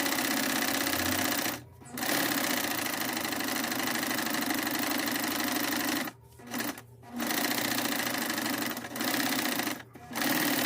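Domestic sewing machine stitching at a steady speed, stopping briefly several times and starting straight back up.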